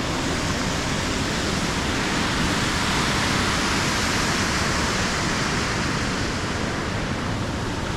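Water rushing steadily down a chain of cascading waterfalls in a rocky gorge.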